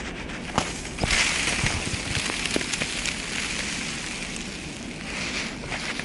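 Footsteps crunching through fresh deep snow, with a louder rustling hiss about a second in.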